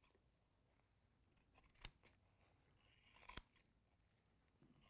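Scissors snipping through epoxy-wet carbon fibre cloth and peel ply to trim the overhang from the mould edge. The snips are faint, short, sharp clicks: one about two seconds in and two close together past three seconds.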